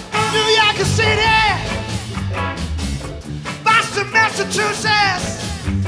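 Live soul band playing an up-tempo R&B number with horns, and a singer shouting "Massachusetts" near the end.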